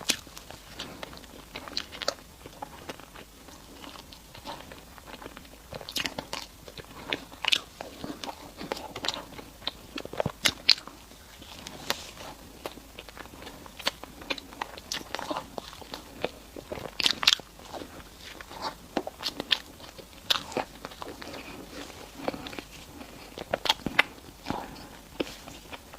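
A person chewing and biting sweet food close to the microphone, with irregular sharp mouth clicks and crackles throughout.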